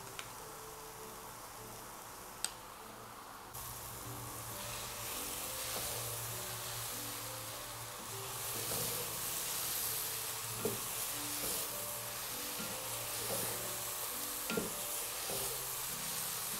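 Grated carrots frying in desi ghee in a pot: the sizzle jumps up a few seconds in as the ghee melts into the hot, dried-out carrots, then grows again. A wooden spatula stirs the carrots, knocking against the pot now and then. This is the start of frying the carrots in ghee for gajar ka halwa, once their water has cooked off.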